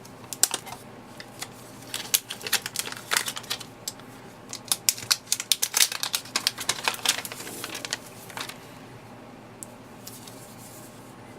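Hands handling a Nokia N9 smartphone and its packaging: rapid, irregular clicks and crackles that die away about eight seconds in.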